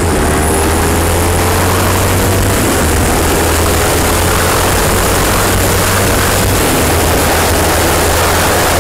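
Sport motorcycle riding at road speed, with the engine's steady tone under heavy wind rushing and buffeting over the rider's camera. The engine note dips slightly near the start, then holds steady.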